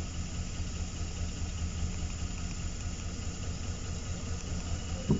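GMC Savana's V8 engine idling with a steady low, pulsing rumble. It is misfiring, and the scan tool logs injector control circuit faults for cylinders 1, 3, 5 and 7. A brief click sounds just before the end.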